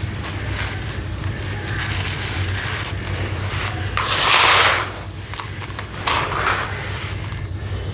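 Dried sawdust-and-sand clumps crumbling into water, with a steady run of small crackles. A louder rush of crumbling comes about four seconds in and a smaller one around six seconds.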